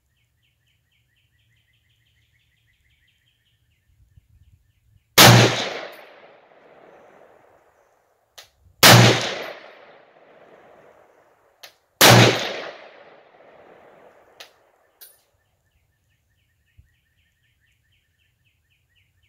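Three single shots from an M1A semi-automatic rifle in 7.62x51mm, spaced about three to four seconds apart. Each sharp crack is followed by an echo that dies away over about a second and a half.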